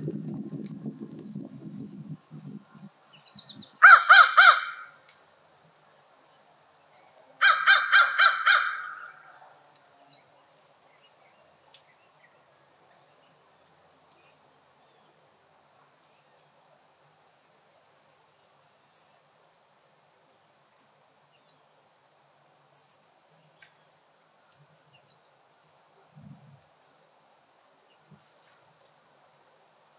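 Crows cawing: a short run of harsh caws about four seconds in and a longer run of several caws around eight seconds, with small birds chirping high and thin throughout. A low rumble fades out in the first two seconds.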